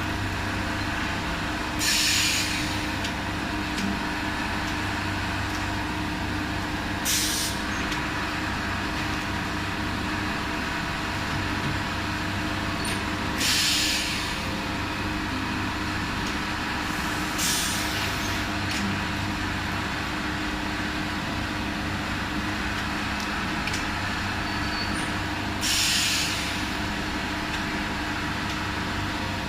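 High-frequency TPU welding and cutting machine running with a steady electrical hum. Five short hisses of released air come at irregular intervals of several seconds, as its pneumatic press cycles, with a few light clicks between them.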